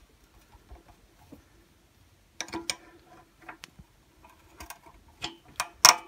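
Pliers clicking and tapping against the carburettor fittings and fuel pipe clamp of a small engine: scattered small metallic clicks with quiet gaps, a cluster of louder clicks near the end.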